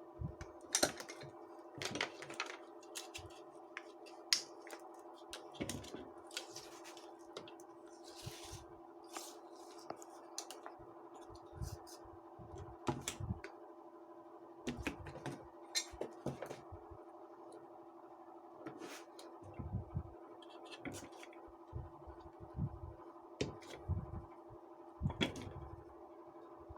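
Irregular clicks, taps and knocks of parts and tools being handled, over a steady electrical hum.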